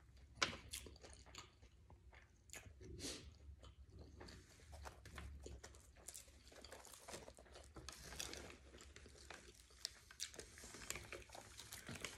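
Quiet close-up chewing and crunching, with many short, scattered soft clicks and crackles as a sub sandwich is handled and pulled apart.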